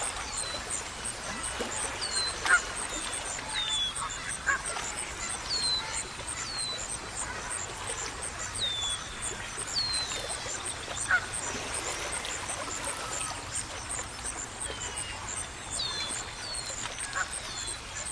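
Outdoor nature ambience of birds calling: short, falling whistled notes every second or two, with now and then a sharper call, over a steady high-pitched chirping pulse about three times a second.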